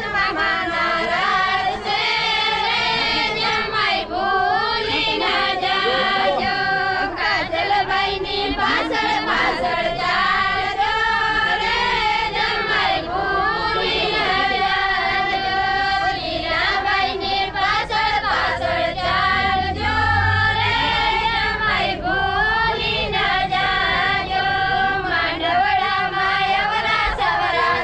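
A group of women and girls singing a traditional Gujarati wedding folk song together.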